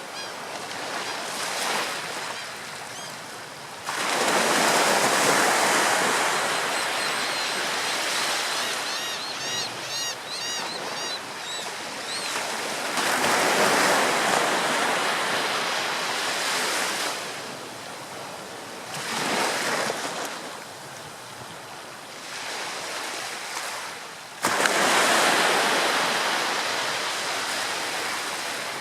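Ocean surf breaking on a shore in repeated surges: waves crash about four seconds in, again midway, once more a little later, and suddenly near the end, with quieter wash between. A bird gives a series of short, rising-and-falling calls near the start and again about ten seconds in.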